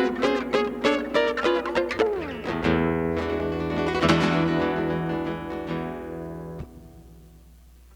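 Acoustic guitar playing the closing bars of a song: picked notes, a quick sliding note, then a final chord left to ring and muted by hand about six and a half seconds in, leaving faint room tone.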